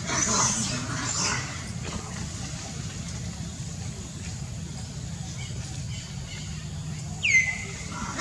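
Long-tailed macaques calling: a few short, screechy high calls in the first second or so, then near the end one sharp high call that falls in pitch and levels off. A steady low hum runs underneath.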